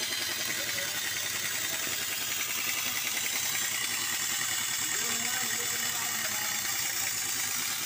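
A steady, loud hiss of noise with faint voices beneath it.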